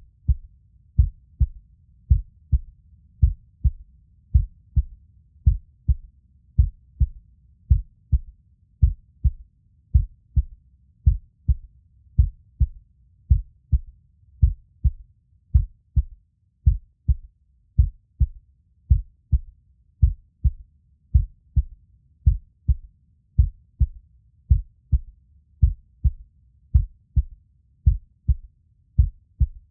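Heartbeat sound playing steadily as a lub-dub double thump, a little under one beat a second, low and muffled, with a faint low hum between beats.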